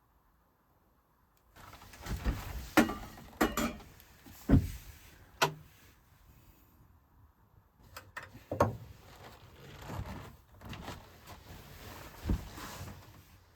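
Irregular knocks, clatter and scraping of things being handled, in two spells with a short lull between them.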